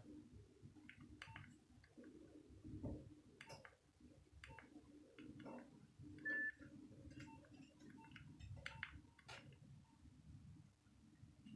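Faint scattered clicks of a Nokia 1202 handset's keys being pressed, with one short high single-tone beep from the phone about six seconds in.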